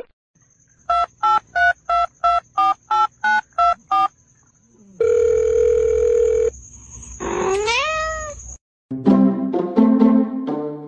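A run of ten short electronic beeps in quick, even succession, like a phone keypad being dialled, followed by a held steady tone like a dial tone. Then comes a rising, wavering call, and near the end a few pitched, stepped notes.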